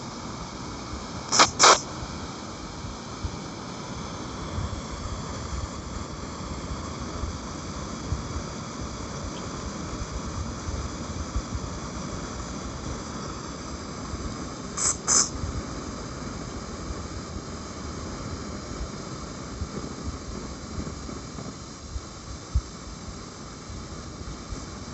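Wind buffeting the microphone, heard as a steady rumble and hiss. Two brief double clicks break through, one about a second and a half in and one about fifteen seconds in.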